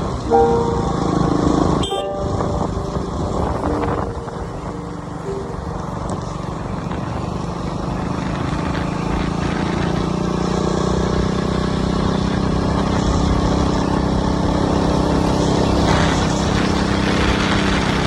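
KTM RC 200's single-cylinder engine running steadily under way, with road noise. A sharp click about two seconds in, and a few short steady tones in the first five seconds.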